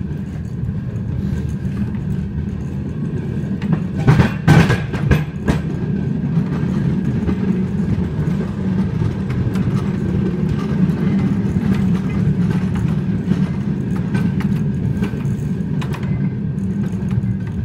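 Narrow gauge pump trolley rolling along the rails: steady rumble of steel wheels on track, with a brief burst of clattering about four seconds in.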